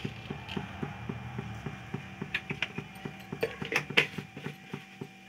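Cumin seeds crackling and popping in hot oil in a kadhai, a fast run of small irregular pops with a few louder ones a little past the middle. This is the tempering stage, where the seeds splutter once the oil is hot enough.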